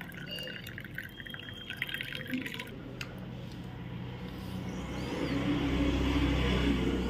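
Hot water poured into a cup, a splashing trickle for about three seconds that stops suddenly. After that a steady hiss with a low rumble grows louder toward the end.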